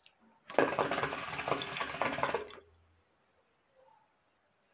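Hookah water bubbling in the glass base as smoke is drawn through the hose. A dense gurgle lasts about two seconds, then stops.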